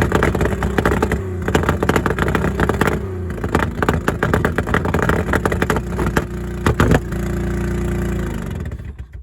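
A worn, high-mileage car engine being revved hard and held at high revs, with heavy clattering through the running. It is being run on purpose to throw a rod through the block. It settles to a steady speed, then winds down and cuts off just before the end.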